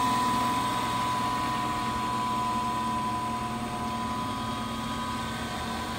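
Grizzly 6x27-inch vertical milling machine's 1.5 hp single-phase motor and spindle running at steady speed, a steady hum with a high tone over it that grows slightly fainter.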